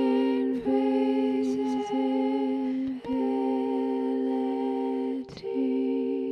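A voice humming wordlessly in long, steady held notes, with short breaks between them about four times.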